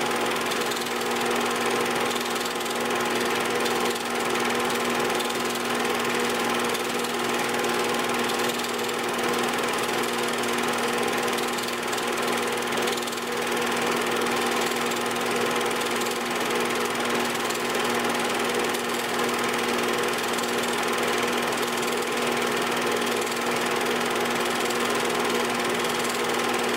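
8mm film projector running during playback: a steady, unchanging motor hum with mechanical rattle.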